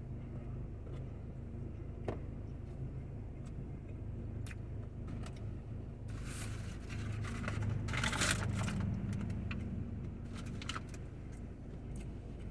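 Eating sounds: chewing with small mouth clicks, and a louder rustle, as of a food wrapper or bag, a little after the middle, over a steady low hum.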